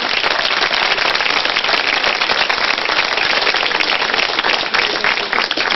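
Studio audience applauding: dense, steady clapping from many hands.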